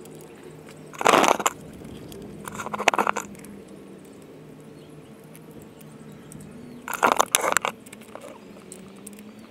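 Socket ratchet clicking in three short bursts as the 8 mm oil filter cap bolts on a Suzuki Burgman 400 engine are run in and tightened.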